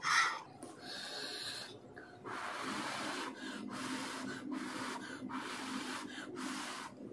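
Masala Maggi noodles being slurped off a fork: from about two seconds in, a string of long, airy sucking draws with short breaks between them.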